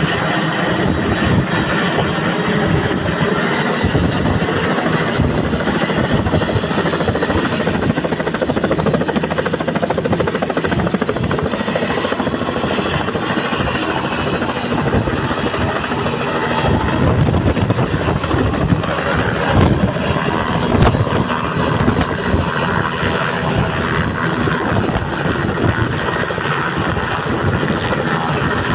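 Helicopter running nearby, a loud steady rotor and engine noise with a rapid low chop.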